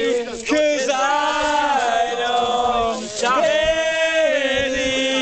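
Several men singing together in chorus, holding long drawn-out notes with short breaths in between.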